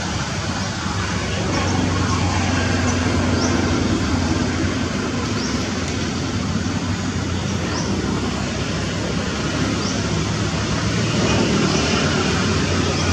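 Steady low rumble and hiss of outdoor background noise, with faint short high chirps now and then.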